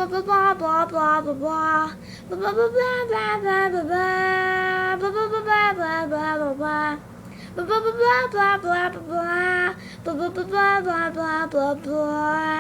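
A high-pitched voice singing wordless-sounding phrases of held and wavering notes, with short breaks between phrases, over a faint steady low hum.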